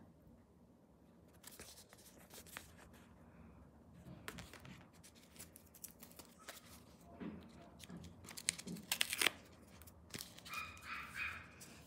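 Tape and paper wrapping on a small package being cut with a box cutter and torn open, in a series of scraping, tearing and crinkling bursts, loudest about nine seconds in. A dog gives a brief high-pitched call near the end.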